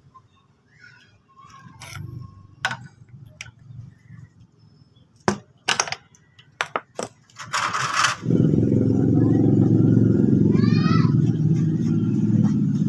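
A few sharp metal clicks and knocks from tools and parts being handled. About eight seconds in, a short burst is followed by a motorcycle engine starting and running steadily, loud and low, to the end.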